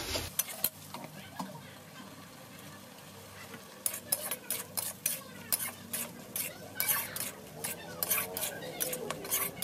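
Metal spatula stirring and scraping spiced potato pieces frying in a metal kadhai, over a light sizzle. From about four seconds in come quick, repeated scrapes and clinks of the spatula against the pan.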